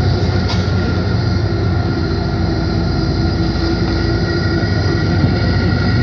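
Tour bus engine and road noise heard inside the cabin: a steady low drone with a few steady higher tones over it.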